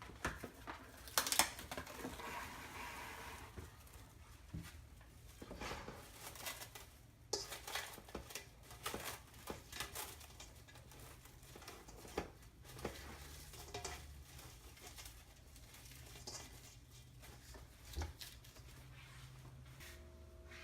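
Scattered kitchen handling sounds: light clicks and knocks, with a short stretch of crinkling about two seconds in, as the bowl of seasoned chicken wings is covered and handled.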